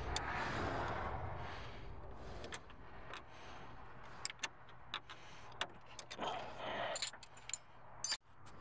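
Scattered metallic clicks and clinks of a wrench working on a car battery's terminal clamps, after a couple of seconds of handling noise.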